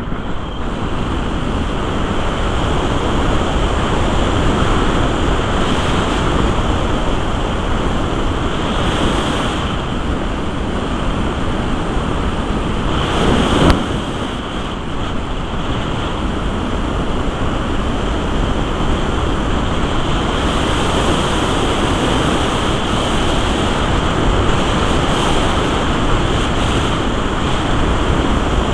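Steady rush of airflow over the camera microphone on a Musger MG12a glider under aerotow. A short knock comes about fourteen seconds in.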